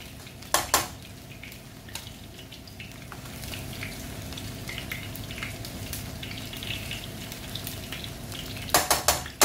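A metal slotted spoon stirring cooked rice, macaroni and lentils in a stainless steel pot, scraping through the grains, with two sharp knocks of the spoon on the pot just after the start and a quick run of louder knocks near the end.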